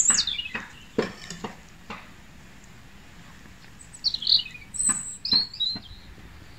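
A knife knocking four times against a cutting board in the first two seconds while roast beef is sliced, with birds chirping, again around four to six seconds in.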